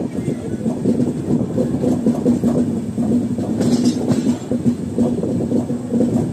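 Indian Railways passenger train running, heard from an open coach doorway: the wheels rumble and clatter over the rails, with a steady low hum underneath.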